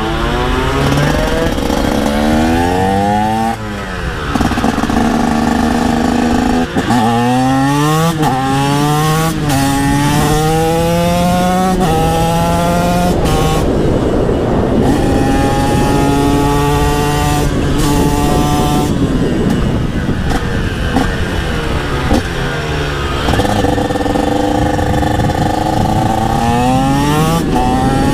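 TM SMR 125 two-stroke supermoto with an aftermarket HGS exhaust, ridden hard: it revs up through the gears in a series of rising steps with quick upshifts, and the revs fall away a few times as it slows for bends. Wind noise runs under the engine.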